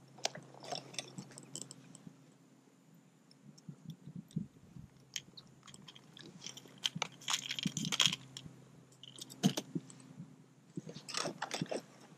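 Irregular clicks, crackles and rustles of close handling as a small redfish is held and unhooked by hand, busiest about seven seconds in and again near the end, over a faint steady hum.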